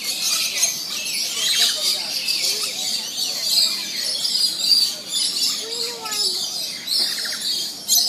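Flock of rainbow lorikeets screeching and chattering continuously, a dense high-pitched din.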